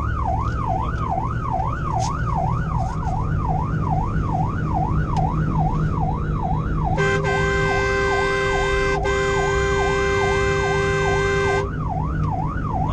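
Fire engine's electronic siren heard from inside the cab, in a fast rising-and-falling wail, over engine and road rumble. About seven seconds in, a steady horn sounds for roughly four and a half seconds, with a brief break in the middle.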